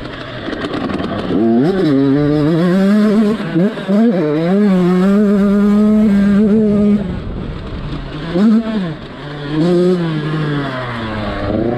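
Husqvarna TC85 two-stroke motocross engine revving hard under riding load, heard from on the bike. The pitch climbs about a second and a half in and holds high for several seconds with brief dips. It then falls off and picks up again in shorter bursts near the end.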